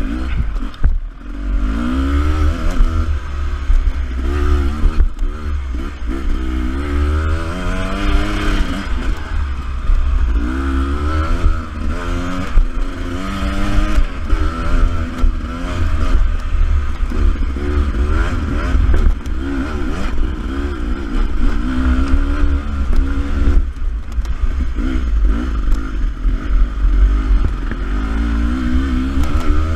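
Beta 300RR two-stroke enduro motorcycle engine under trail riding, its revs rising and falling again and again every second or two as the throttle is opened and closed, over a steady low rumble.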